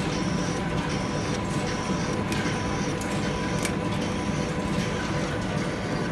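Metal-working lathe running steadily while drilling out a cast part, with a light clack repeating about once a second over a steady hum.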